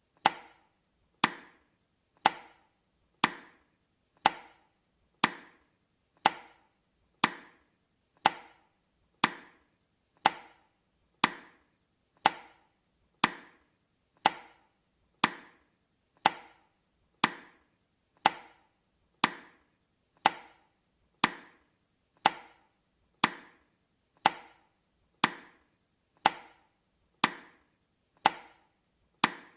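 Countdown timer's tick sound effect: a sharp, quickly fading click once a second, evenly spaced, about thirty in all.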